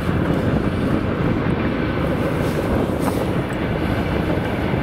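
Wind buffeting the microphone: a steady, loud low rumble with no break.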